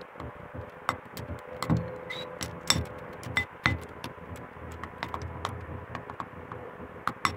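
Metal spoon stirring a thin batter of flour, egg and water in a glass bowl, clinking and scraping against the glass in irregular clicks.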